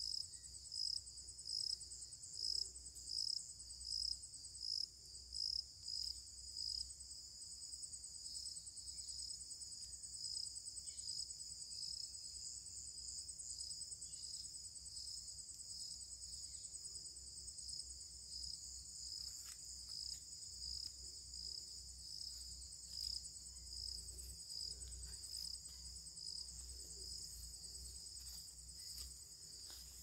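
Insects trilling in a steady high-pitched chorus. For about the first seven seconds the sound swells in pulses a little over once a second, then it runs on evenly.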